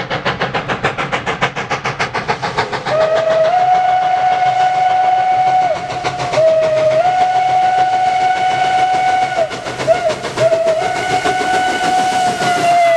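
Norfolk & Western M-class 4-8-0 #475 steam locomotive working hard with rapid, even exhaust chuffs. About three seconds in, its steam whistle sounds long, long, short, long, the grade-crossing signal, drowning out the exhaust.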